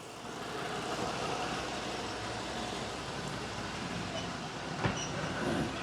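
Ford 6.8-litre V10 gasoline engine idling steadily and evenly, with a single short click about five seconds in. After the camshaft was replaced, the earlier noise from cylinder 4 is gone.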